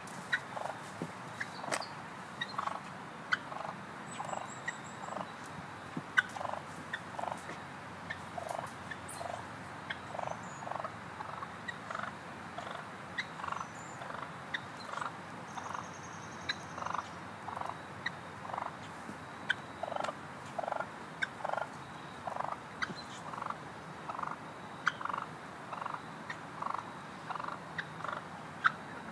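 Wild turkey calling with short calls repeated about once or twice a second, unsettled by a person close by. A sharp click about six seconds in.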